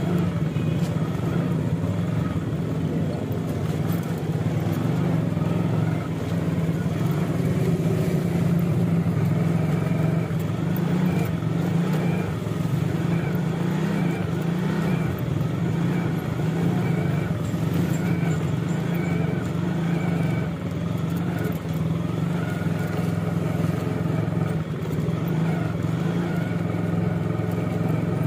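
Motor vehicle engine running steadily amid street traffic, a constant low drone with a fainter wavering higher note over it.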